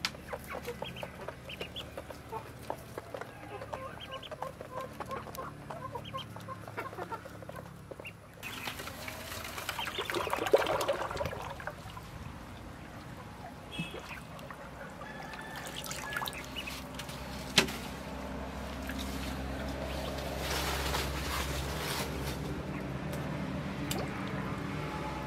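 Many ducklings peeping, in quick, repeated high chirps. About eight seconds in, a rush of water splashing starts, followed by water sloshing as the ducklings swim, with one sharp click partway through.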